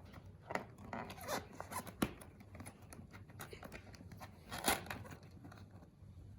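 Cardboard toy box being handled and pried at to get it open: scattered scrapes and rustles, with two sharper clicks about two seconds and nearly five seconds in.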